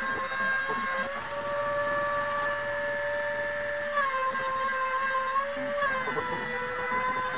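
Hobby CNC router's spindle motor running and cutting into plywood: a steady high whine whose pitch shifts slightly a few times as the cutting load changes.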